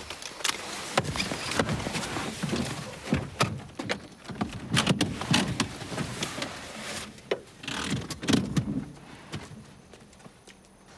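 Movement inside a car: clothing rustling, knocks against the seats and a car door as a passenger gets out, with many short clicks and thumps. It dies down to quiet about two seconds before the end.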